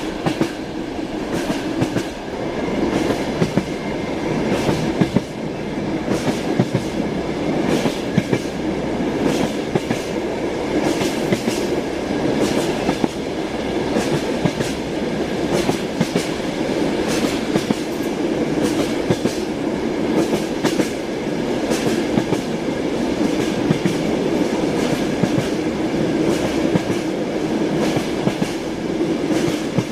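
Train running along the track, a steady rumble with the wheels clacking sharply many times over the rail joints.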